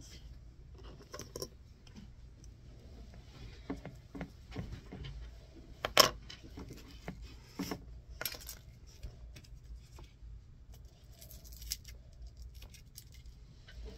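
Small clicks, ticks and scratches of hands working a shielded Cat 6 cable and its small metal and plastic jack parts on a desk. One sharp, loud snap comes about six seconds in as a white plastic termination piece is pressed down. A faint low hum sits under it all.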